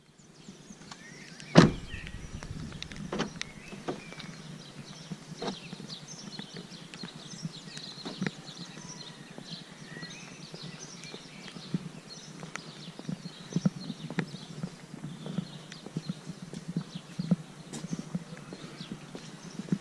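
A car door slams shut with one loud thump about a second and a half in. Footsteps and small knocks follow over outdoor ambience, with faint bird chirps.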